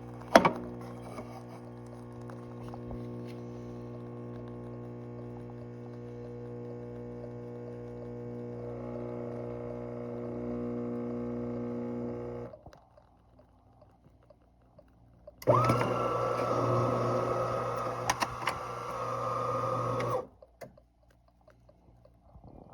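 Fricoffee espresso machine running: a click, then a steady buzzing hum for about twelve seconds that stops suddenly. A few seconds later a louder, noisier machine sound with a steady whine runs for about five seconds and cuts off.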